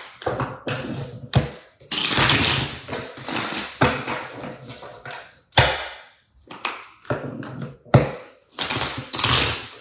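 Tarot cards being shuffled and handled: bursts of shuffling and rustling, broken by a few sharp taps or knocks of the deck on the table.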